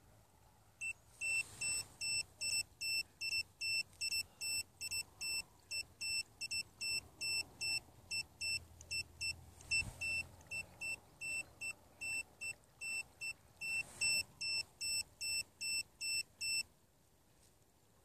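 A high electronic beep repeating about three times a second, stopping suddenly near the end.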